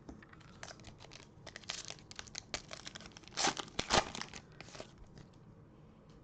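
A foil trading-card pack wrapper being torn open and crinkled in a run of short rustling rips, the loudest about three and a half and four seconds in.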